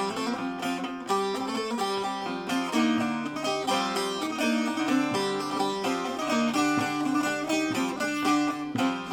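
Instrumental music from a Turkish folk song, with plucked strings playing a quick run of short notes and no singing.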